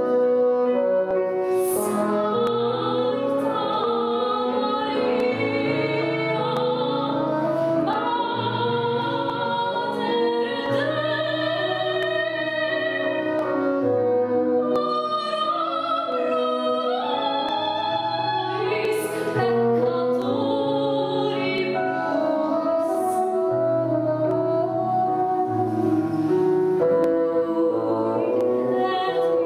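Female voice singing in classical style, with a bassoon holding sustained low notes and piano accompaniment.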